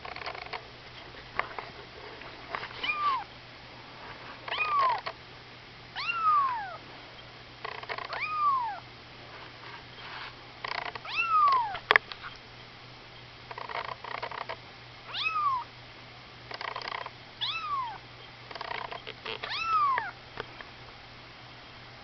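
Two-week-old kitten mewing repeatedly: about eight short, high mews, each rising then falling in pitch, roughly every two seconds.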